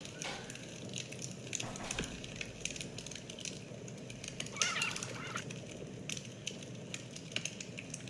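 Scattered clicks and crackles, with a bird's short chirping call about halfway through.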